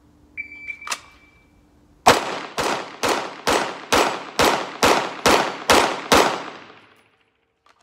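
A shot timer gives one short beep, then a 9mm Glock 45 MOS pistol fires ten quick shots about half a second apart. This is a 10-10-10 drill string, timed at 5.75 seconds, which the shooter calls way too fast.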